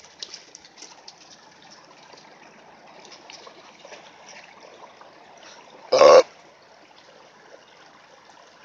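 Shallow creek water running over a gravel bed, a faint steady trickle. About six seconds in, one short loud voice call cuts in.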